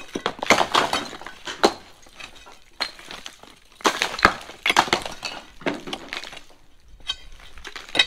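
Bricks and lumps of mortar breaking off an old brick wall and clattering down onto brick rubble, in several irregular bursts of knocks and crumbling.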